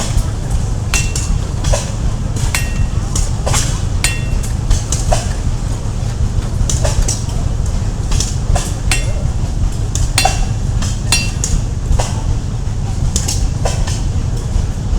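Blacksmith's hammer striking metal on an anvil: uneven blows about once a second, each with a short metallic ring, over a steady low rumble.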